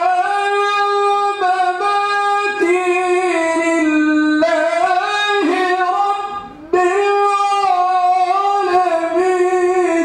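A man's voice reciting the Quran in Arabic in a melodic, chanted style (tilawah), through a microphone: long held, ornamented notes in phrases, with a short breath pause about six and a half seconds in.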